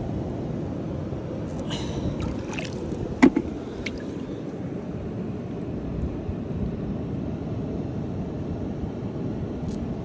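Shallow seawater sloshing and trickling around the rocks of a tide pool as a hand works under the surface, with a few short sharp sounds between about one and a half and four seconds in, the loudest just after three seconds.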